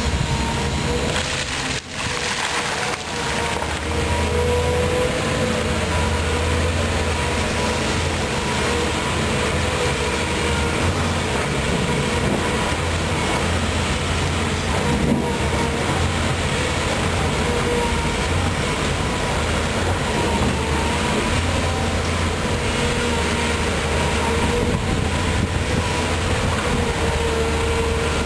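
Volvo EC210B tracked excavator's diesel engine running under load as it digs and swings, with a low steady rumble and a steady whine over it. The level dips briefly about two seconds in.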